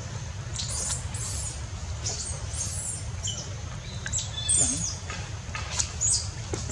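Short, high-pitched chirping calls that sweep downward, several times a second or so in clusters, over a low steady rumble.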